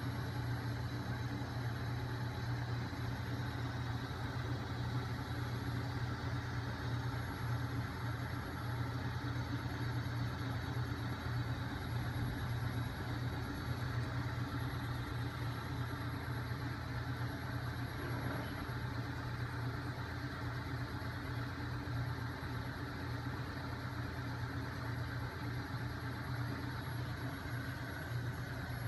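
Home-built magnet-coupled flywheel machine with a heavy crankshaft, driven by a small 12 V electric motor, running steadily: a steady low hum with a faint high-pitched whine over it.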